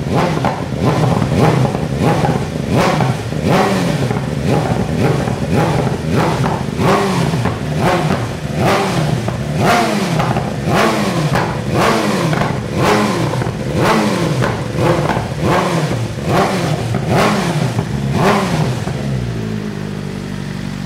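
BMW M1000RR inline-four engine breathing through a full titanium Arrow header and stock Akrapovic muffler, blipped repeatedly at about one rev a second, then settling back to idle near the end. The revs are kept moderate because the engine is not fully warmed up.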